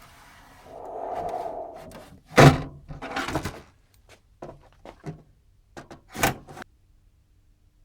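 Parts of an electronics unit being handled during a teardown: a scrape or slide, then a sharp knock with a rustle after it, a few light clicks, and a second knock near the end.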